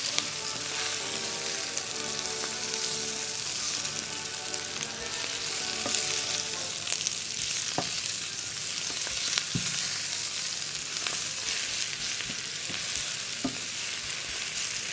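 Spinach stir-frying in hot garlic oil in a non-stick pan: a steady sizzle, with sharp clicks here and there as a utensil tosses the leaves.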